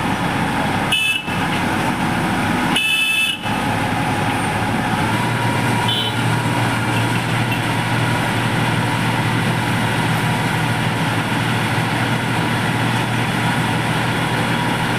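Heavy road-paving machinery running steadily, with two short horn toots about one and three seconds in. A steady low engine hum joins in about five seconds in.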